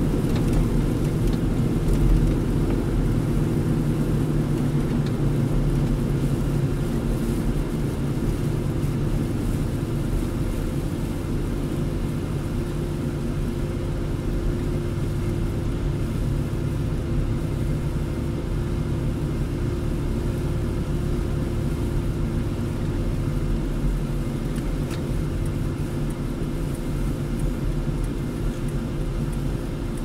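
Car driving on a snow-covered road, heard from inside the cabin: a steady low rumble of engine and tyre noise with a faint constant hum.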